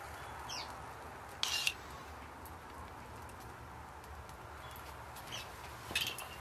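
Outdoor ambience with a steady low rumble and two short falling bird chirps, broken by two brief sharp scraping sounds, one about a second and a half in and one near the end.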